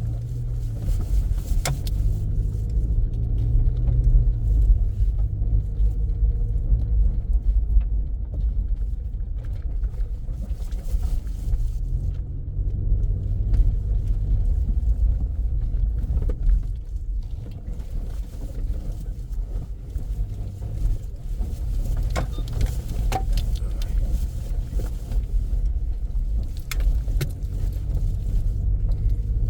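A motor vehicle driving along a rural dirt road: a steady low engine and road rumble, with occasional small knocks and rattles.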